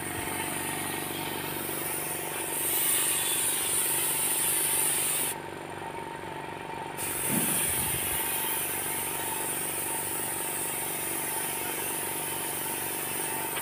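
An air compressor runs steadily, with the high hiss of air from a paint spray gun over it. The hiss starts about three seconds in, stops for about a second and a half in the middle, then comes back.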